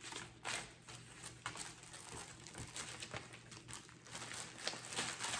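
Crinkly rustling in irregular bursts as cross-stitch pieces are handled and sorted by hand on a table.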